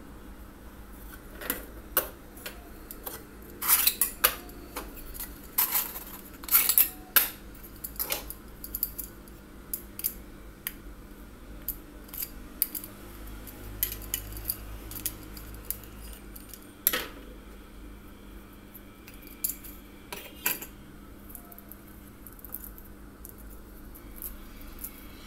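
Irregular clicks and clacks of small hand tools and plastic wiring parts (bulb holders, a two-pin plug, a screwdriver, pliers) being handled on a tabletop. They are busiest in the first eight seconds, with a few scattered ones later.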